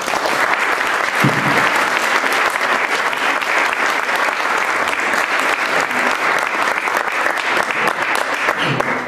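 Audience applauding, many hands clapping at a steady level, dying down near the end.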